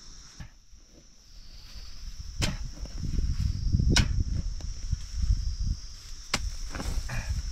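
Three sharp knocks, about two seconds apart, over dense low rumbling, with a steady high drone of insects behind.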